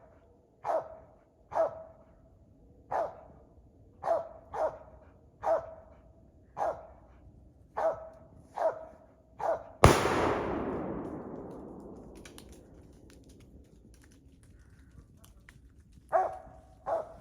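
A squirrel dog barking treed, short barks at an even pace of about one a second. About ten seconds in comes a single loud shotgun shot that rings out and fades over two or three seconds. The barking stops, then starts again near the end.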